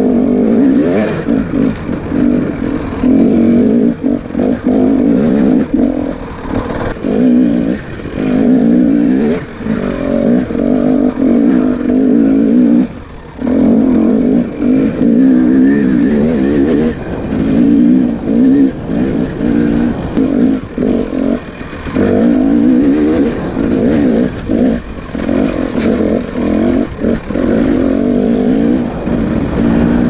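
Dirt bike engine ridden hard, its revs rising and falling as the throttle is opened and shut over and over. There is a brief full lift-off about thirteen seconds in.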